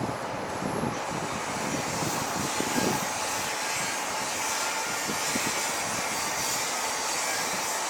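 Toden Arakawa Line tram running past on its track: a steady rushing noise with a few low knocks in the first seconds, the hiss growing brighter later on.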